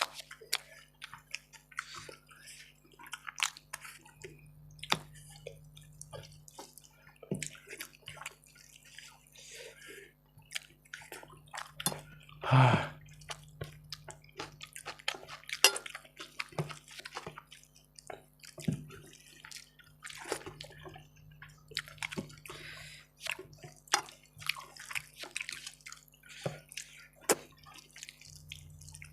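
Wet eating sounds of rice and chicken curry being eaten: many short smacks, squelches and chewing clicks at irregular intervals, with one louder, brief sound about halfway through.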